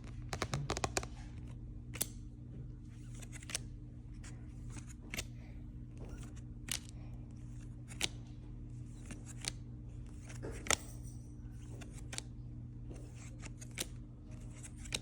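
Trading cards being handled and flipped through one by one: a sharp click or snap of card stock about once a second, with a few quick ones together at the start, over a steady low hum.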